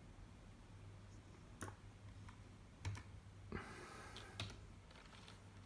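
A few faint, separate computer keyboard clicks, roughly a second or more apart, over near silence, with a short soft rustle in between.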